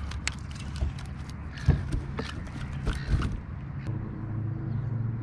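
Clicks and knocks as a landing net and a freshly caught flathead are handled on a plastic kayak, the two loudest knocks coming about two and three seconds in. The clatter stops about three and a half seconds in, leaving a steady low hum.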